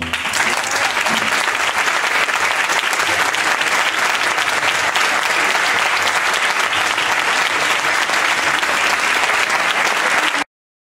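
Audience applauding, a dense, steady clapping that cuts off suddenly near the end.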